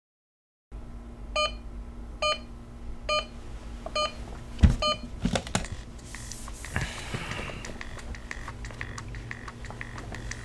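Digital alarm clock beeping five times, about one beep a second, cut short by a knock and a few clicks as it is hit off, then bedding rustling.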